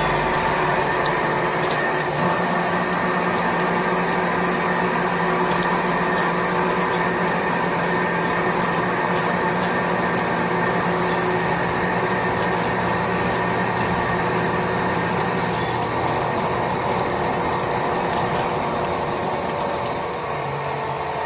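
ALTCK36A slant-bed CNC lathe turning a long metal shaft: the spindle and cutting tool run steadily, a constant machine noise with a hum, a few steady high tones and scattered light ticks. The low hum drops out about three quarters of the way through.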